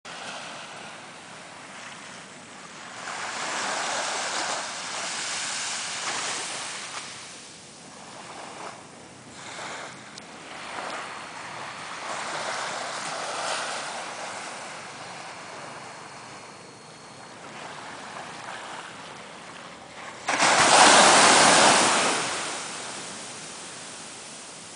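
Small waves breaking and washing up a sandy beach, the surf swelling and fading every few seconds. About twenty seconds in, a sudden loud rush of noise lasts about two seconds.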